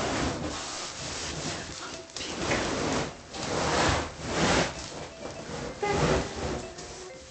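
A plastic-wrapped suitcase being slid out of a large cardboard box: cardboard and plastic wrap scraping and rustling against each other in a few long swells.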